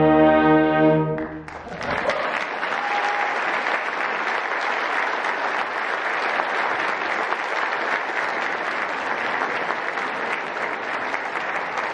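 A brass-heavy concert band holds its final chord, which is cut off about a second in. Steady audience applause follows.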